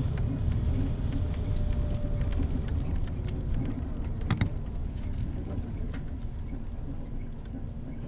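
Bus engine and road noise heard from inside the moving bus, a steady low rumble with small rattles and one sharp knock about four seconds in, easing slightly toward the end.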